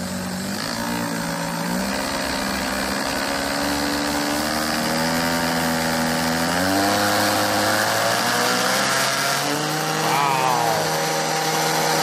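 Electric mixer motor driving a small pump, running with a steady whine that climbs in pitch in several steps and grows louder as its speed control is turned up from barely on.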